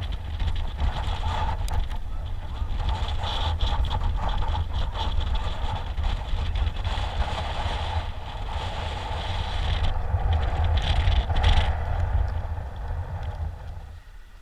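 Wind buffeting the action camera's microphone in a steady, gusting rumble, dying down near the end.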